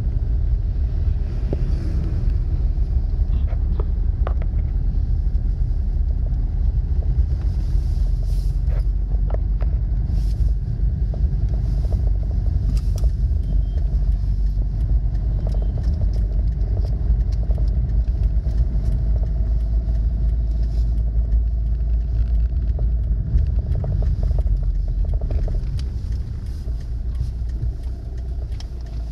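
A car on the move: steady low rumble of engine and road noise, with a few faint clicks.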